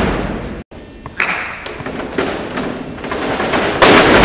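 Many feet stamping and shuffling together on a gym hall floor as a line of fencers steps and lunges in unison, the thuds echoing. The loudest surges come at the start and again near the end, with a short dropout under a second in.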